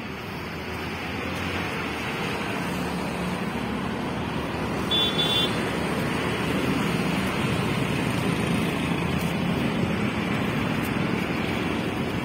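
Street traffic noise: a steady rumble of passing road vehicles that grows slightly louder, with a brief high beep about five seconds in.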